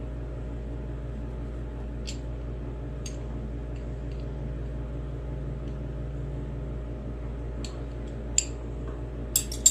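A steady low hum with a few light clicks, then several sharper metallic clicks near the end as the lawn mower's oil drain plug is put back in.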